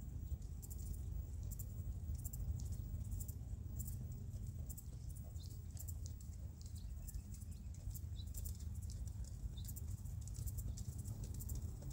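Horse walking on arena sand: soft hoof footfalls and scattered light ticks, under a steady low rumble.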